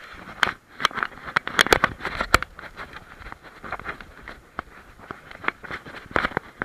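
A camera harness on a walking German Shepherd jostling with the dog's stride, with its paws on stones: irregular sharp clicks and knocks, a few a second, over a rustling of fur and harness.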